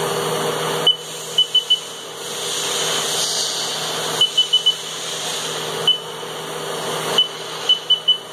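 Haas Mini Mill's 7.5 HP spindle running steadily at about 5,000 RPM, a steady hum with hiss over it. Short high beeps sound over it several times, some single and some in quick runs of three or four.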